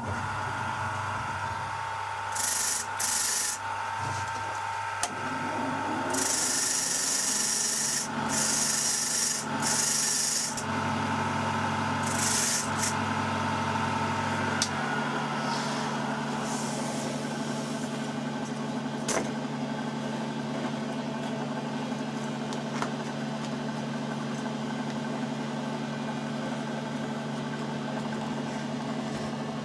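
Bench grinder motor running with a metal wire wheel brush, and a knife-handle blank pressed against the spinning wire wheel in several bursts of harsh scratching in the first half, stripping off leftover epoxy and masking tape. The motor's hum rises in pitch about five seconds in, then runs steadily.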